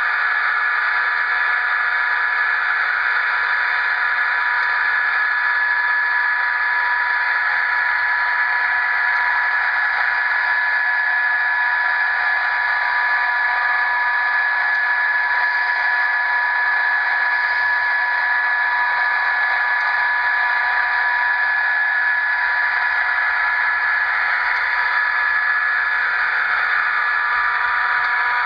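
An HO-scale locomotive's LokSound sound decoder playing an EMD F40PH prime mover held at notch 8 in HEP mode, through a small 28 mm speaker with almost no bass. It is a steady, unchanging scream with a couple of whining tones on top, the sound that earned F40PHs the nickname Screamers.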